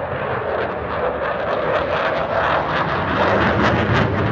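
Jet noise from a Dassault Rafale fighter's twin Snecma M88 engines as it flies past, growing louder, with a ragged crackle coming in about a second and a half in.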